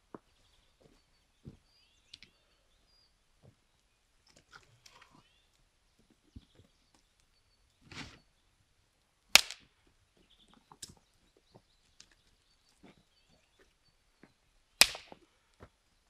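Scattered sharp clicks and knocks, with two loud snaps about nine and fifteen seconds in.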